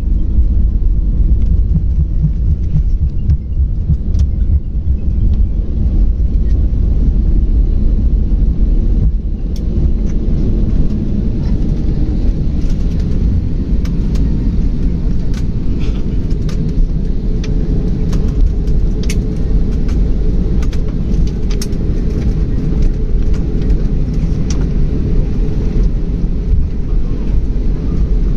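Airliner cabin noise: a steady low rumble of engines and airflow heard from inside the passenger cabin, with many light clicks and rattles from about twelve seconds in.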